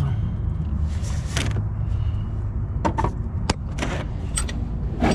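A metal wrench clinking and clicking against the bottom bolt of a car's thermostat housing as the bolt is worked loose: a few separate sharp clicks over a steady low hum.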